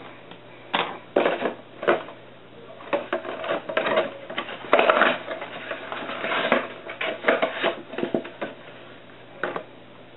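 Irregular clattering and knocking of small hard objects being picked up, moved and set down by hand, with short scraping or rustling stretches; the loudest run comes about five seconds in.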